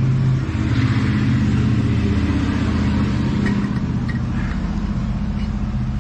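A motor vehicle's engine running steadily nearby, its pitch shifting about half a second in.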